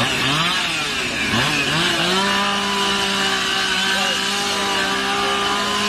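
Two-stroke chainsaw revved in several quick blips, then held at full throttle on one steady high note from about two seconds in.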